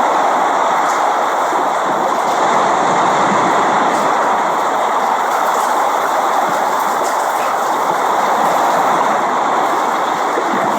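Steady rain: an even, constant hiss of rainfall, with a few faint ticks of single drops.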